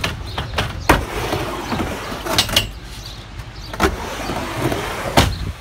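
Skateboard wheels rolling back and forth on a wooden mini ramp: a steady rumble broken by four sharp clacks, about one every second and a half, as the board meets the ramp's transitions and coping.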